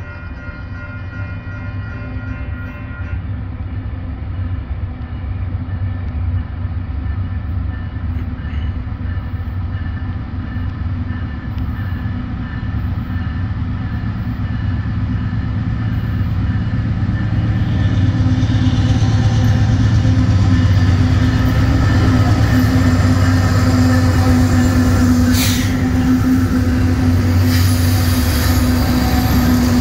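Canadian Pacific diesel freight locomotives approaching and passing, their engines running in a low, steady drone that grows steadily louder as the train nears. A train horn chord ends about three seconds in. Near the end, wheel and rail noise adds as the lead unit rolls by.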